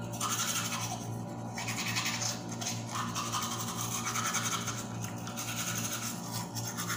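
Teeth being scrubbed with a medium-bristle Colgate manual toothbrush: a wet, rasping back-and-forth brushing that comes in uneven stretches with short pauses.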